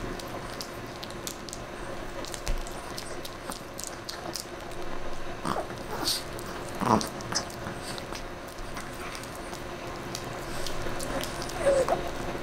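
A small Chihuahua chewing a homemade calf neck bone, making irregular clicks and crunches of teeth on bone. A few louder licks and smacks come about halfway through and near the end.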